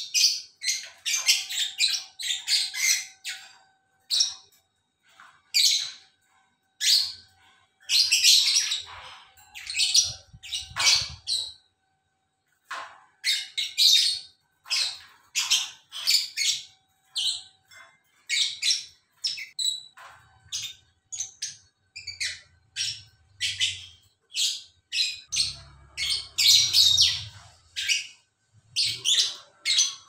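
Caged lovebirds chattering: rapid runs of shrill chirps and squawks, almost unbroken, with short pauses.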